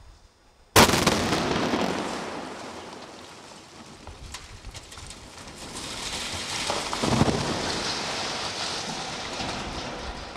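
A demolition blast at the base of a brick chimney goes off about a second in with a sharp crack that dies away into a long rumble. About six seconds later the toppled chimney crashes to the ground, followed by a long rumble of falling masonry.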